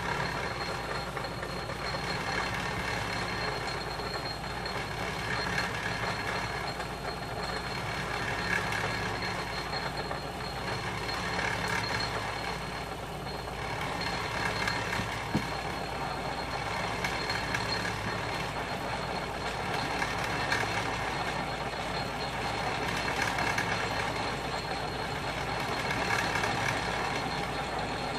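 Atlas metal lathe running slowly in back gear while a large twist drill bores a 1-inch hole through a metal part in the four-jaw chuck. The motor and gear train hum steadily, and the cutting noise swells and fades every couple of seconds. A single sharp click comes about halfway through.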